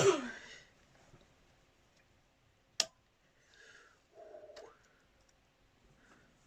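Hand tools clicking and scraping against the valve gear of a Volvo D17C engine's cylinder head as a lever is tried on a valve spring: a loud short rasp right at the start, one sharp metallic click a little under three seconds in, then faint scrapes and small ticks.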